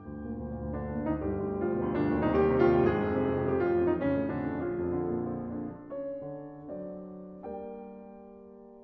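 Solo piano playing a classical piece: a passage that swells to its loudest a couple of seconds in, then slows and thins to a few soft, separate chords that die away near the end.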